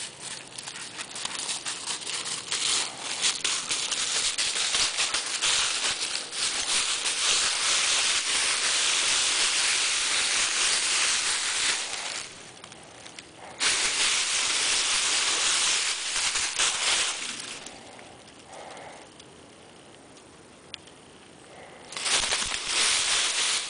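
Dry fallen leaves crunching and crackling loudly as a dog rolls and thrashes about in them. The sound comes in long spells with short lulls, ending in a short last burst.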